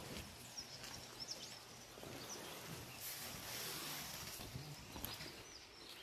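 Quiet outdoor ambience with a few short, high bird chirps about a second in, and a brief rush of hiss a few seconds later.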